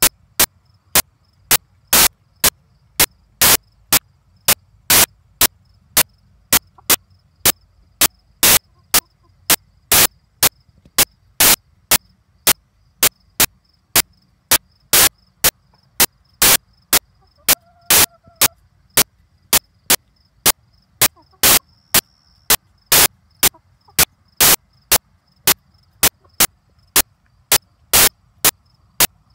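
Crickets chirping faintly over a low hum, cut through by a loud, sharp click that repeats about twice a second.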